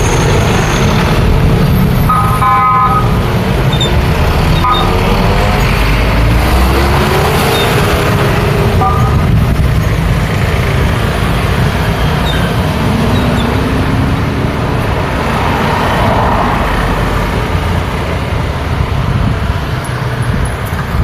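Busy road traffic: a steady, loud rumble of passing buses, trucks, cars and motorbikes. A short horn toot sounds about two and a half seconds in, with another brief one around nine seconds, and engine notes rise in pitch as vehicles accelerate past.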